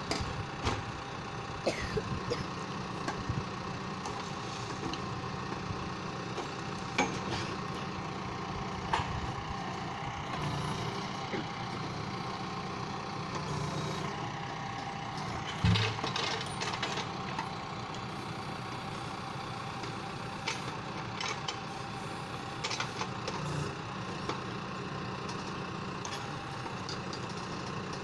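John Deere 6115M tractor engine running steadily, powering the hydraulic crane of a timber trailer, with scattered knocks and clunks from logs being gripped and loaded; the loudest thump comes a little past halfway.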